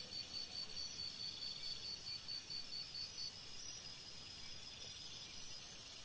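Night insect chorus: a steady high buzz from insects, with a chirping trill of about four chirps a second that stops about three seconds in.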